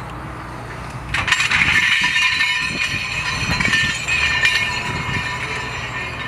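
Ferrous scrap dropping from an excavator's lifting magnet onto a pile: about a second in, a sudden metallic clatter and jingle of many pieces that goes on for a few seconds and then tapers off, over the steady running of the excavator's diesel engine.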